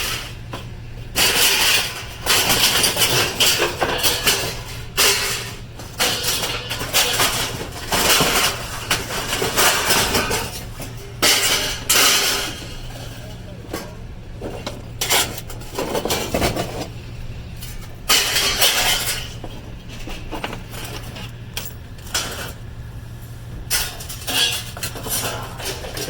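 Scrap metal being handled, with repeated clattering and rustling bursts, over a steady engine idle underneath.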